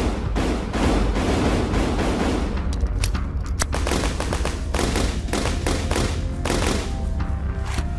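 Rapid gunfire from several firearms, many shots in quick succession, over background music with a steady low bass.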